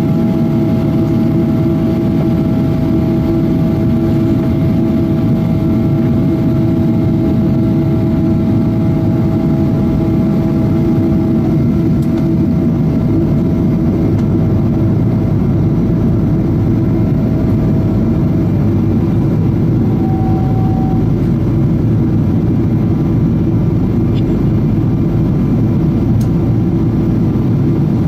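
Cabin noise inside a Boeing 777-200 on approach: a steady roar of engines and airflow, with several steady whining tones over it. Two of the tones stop partway through, and a short separate tone sounds about two-thirds of the way in.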